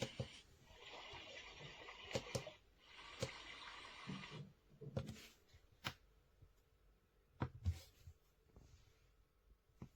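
The built-in speaker of a LIORQUE sunrise alarm clock / sound machine plays a hissing noise sound, broken by sharp clicks of its buttons being pressed. The noise stops and starts again once and cuts off about four and a half seconds in. More scattered clicks and knocks follow, the loudest a pair near the end.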